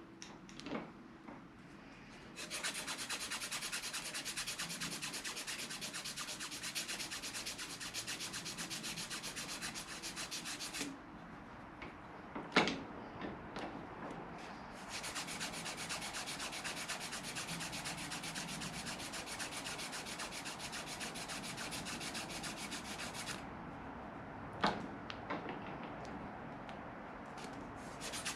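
A strip of sandpaper is worked back and forth around a golf club ferrule by hand (shoe-shine method) to turn it down, making a rapid, even rasping. The sanding stops twice for a few seconds, with a few sharp knocks while the club and paper are handled, then starts again.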